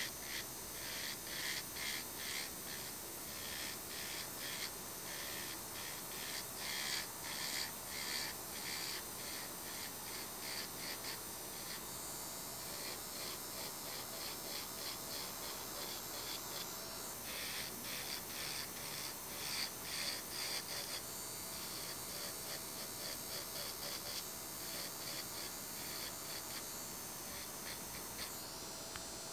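Electric nail drill running with a cone-shaped bit worked along the nail's sidewalls and cuticle line to clear dead cuticle skin. A steady high whine under quick, repeated scratchy strokes, several a second, which come in runs with calmer stretches between.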